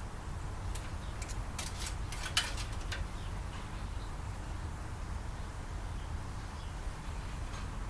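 A run of short, sharp clicks and taps during the first three seconds, over a steady low hum.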